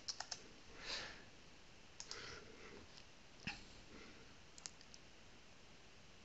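Faint clicks of a computer mouse and keyboard: a few quick clicks at the start, more around two seconds and three and a half seconds in, and a double click near the end.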